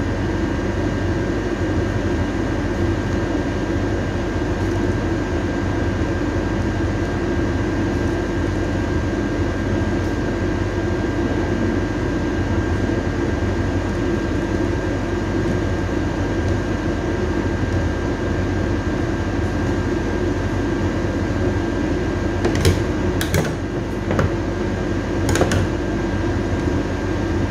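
Steady mechanical hum of a running household machine, with a thin, high steady tone held over it. A few sharp clicks and knocks come near the end.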